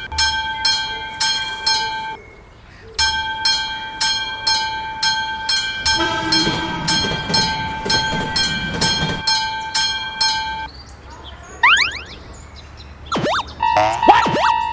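Japanese railroad crossing warning bell ringing in a fast, even ding-ding rhythm. It stops for about a second near two seconds in, then runs on until about ten and a half seconds. A rumble rises under it from about six to nine seconds in. Near the end come quick sliding whistle-like sound effects, and a slightly lower-pitched crossing bell starts.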